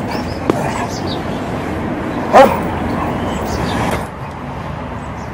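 A dog barking once, a short loud bark about two and a half seconds in, over low outdoor background noise.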